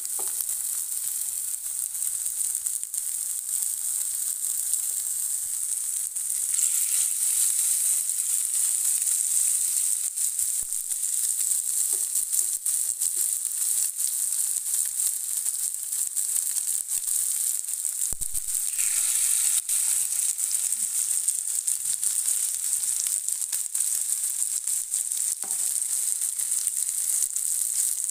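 Chicken kabab patties sizzling as they shallow-fry in hot oil in a pan. The sizzle gets louder about six seconds in and again around nineteen seconds in, as more patties go into the oil.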